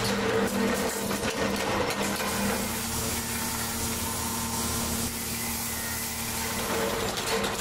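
Belt-driven polishing wheel running with a steady motor hum while a sheet-metal motorcycle mudguard is pressed against it, metal rubbing on the spinning wheel.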